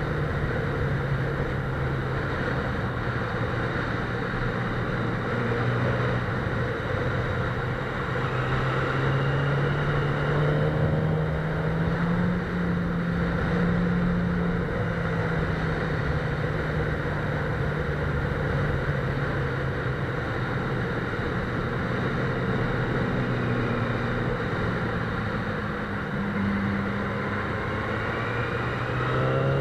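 Sport motorcycle engine running at road speed over a steady rush of wind and road noise, its note rising and falling with the throttle through the bends. It climbs in pitch about ten seconds in and again at the very end.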